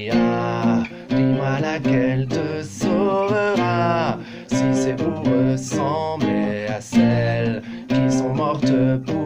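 A man singing over his own strummed acoustic guitar, the chords going on steadily under the sung line.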